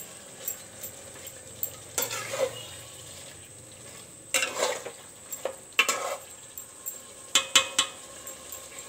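A spatula stirring and scraping pieces of chicken through thick masala in a metal pot, with scattered sharp clinks and scrapes against the pot's sides. A faint steady sizzle of the masala frying runs underneath.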